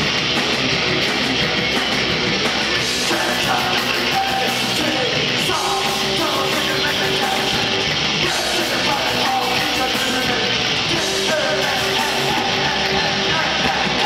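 Punk rock band playing live: electric guitars, bass and drums, with a singer yelling over them. The dense wall of sound keeps up without a break, with held guitar notes ringing through.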